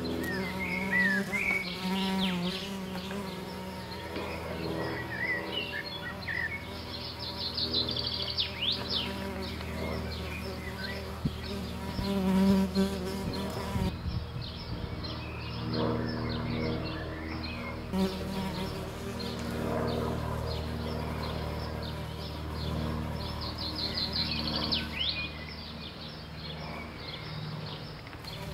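A steady buzzing drone, with short high chirping glides sounding over it every few seconds.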